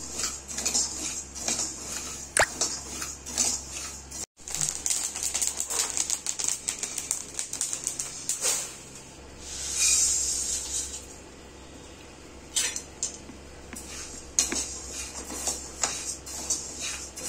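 Steel ladle scraping and stirring grains dry-roasting in an iron kadai, with irregular clicks and the rustle of the grains, over a steady low hum. Around ten seconds in there is a longer hissing swell as roasted grains are tipped onto a metal tray. A brief silent gap comes about four seconds in.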